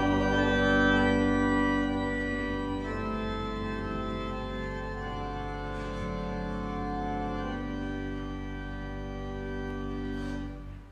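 Church organ playing slow, held chords that change a couple of times and grow quieter, then stop abruptly at the end.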